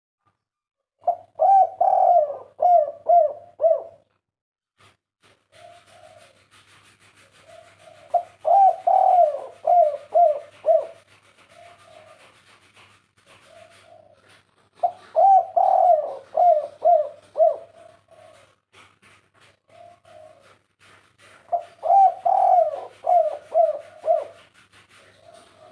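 Spotted dove (tekukur) cooing: four loud phrases of quick coos, about seven seconds apart, with softer single coos between them. A faint hiss and low hum lie underneath.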